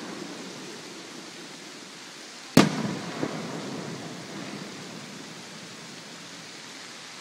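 Aerial firework shell bursting with one loud boom about two and a half seconds in, its rumble echoing off the surrounding valley for several seconds, followed shortly by a fainter pop.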